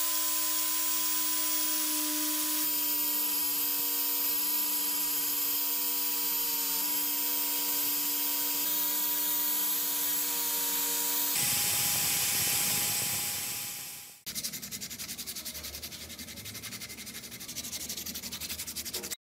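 A power sander's spinning disc grinding the thread wrapping off a wooden knife handle, its motor whining steadily with a hiss of abrasion; about eleven seconds in the sound changes and fades away. Then sandpaper is rubbed by hand over the wooden end of the handle, a fast, fine rasping.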